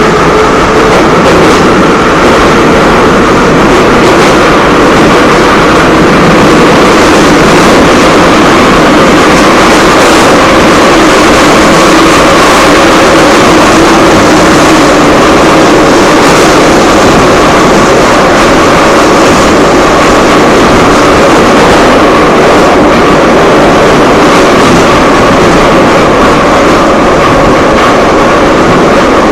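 Broken electric fan running with a loud, steady rushing noise and a wavering whine.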